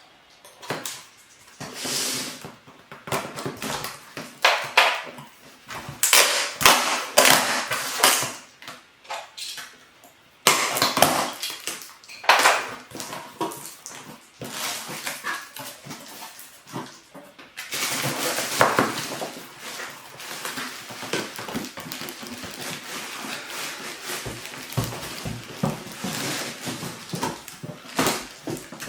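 A cardboard box being opened and its packaging handled: irregular scrapes, knocks and rustles, turning to a denser, continuous crackly rustling from a little past halfway.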